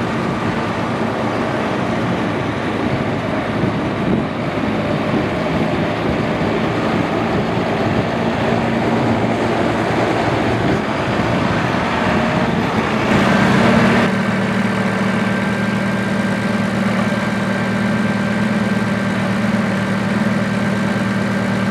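John Deere 6130M's four-cylinder turbo diesel running as the tractor drives around, then, after a sudden change about two-thirds of the way through, idling steadily close by with a thin steady whine.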